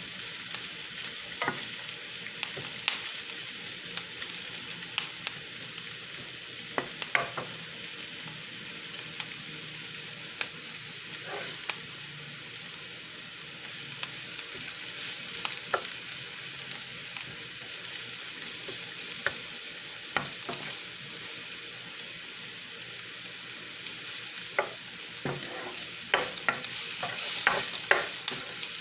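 Food sizzling in a frying pan as it is stirred: a steady frying hiss with scattered sharp clicks of the utensil against the pan, coming more often near the end.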